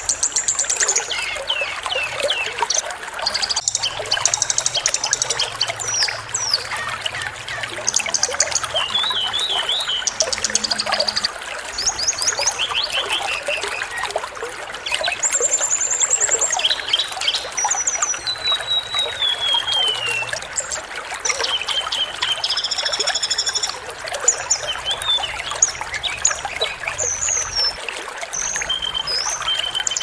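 Small songbirds giving rapid chirps, trills and sharp whistles one after another with short gaps, including a slow falling trill, over a steady rush of flowing water. This is a masteran track of small-bird song, compiled to teach caged songbirds such as the white-rumped shama.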